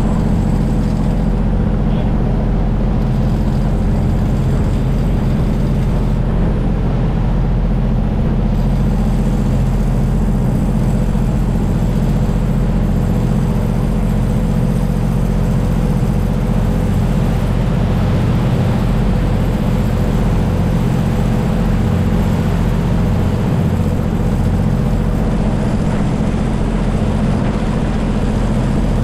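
Diesel engine of a Saen Saep canal boat running steadily: a loud, even drone that does not rise or fall.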